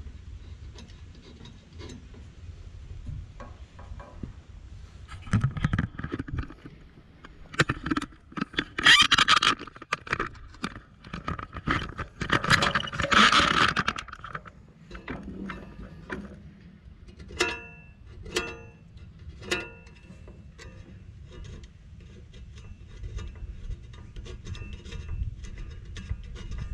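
Hand tools clicking and scraping on the steel circular blade of a Lucas swing-blade sawmill, with the blade stopped. There are two louder, longer scrapes partway through and a few short ringing metal clinks later on.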